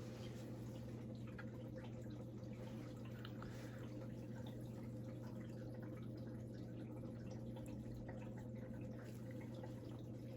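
Quiet room tone: a steady low hum with faint, scattered small ticks.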